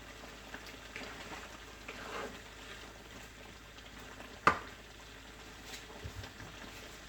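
Faint bubbling and crackle of a pot of sauce simmering, with a few light clicks and one sharp click about four and a half seconds in.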